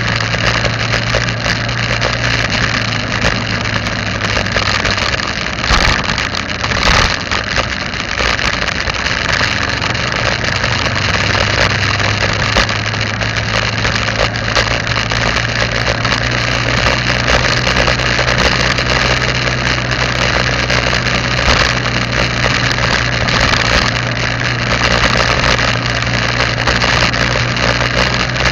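Vehicle engine running steadily with a low hum under road and wind noise, picked up by a dashcam microphone while driving, with a couple of knocks about six and seven seconds in.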